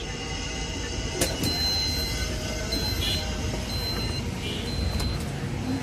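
Electric bus's door warning beeper sounding four short high beeps about a second apart while its doors stand open, after a sharp click about a second in, over a steady low rumble.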